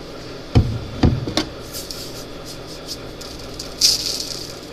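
Two dull thumps about half a second apart, followed by a weaker knock, then a short hissy rustle near the end, like small kitchen containers being bumped and handled.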